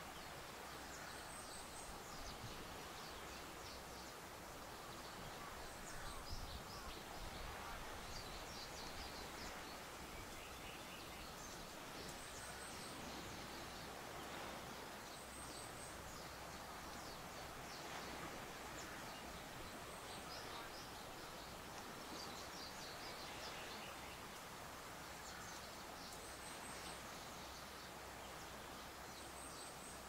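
Faint outdoor ambience of a breeze through tall grass, a steady soft hiss. A short, very high triple chirp repeats every few seconds over it, with fainter scattered chirps lower down.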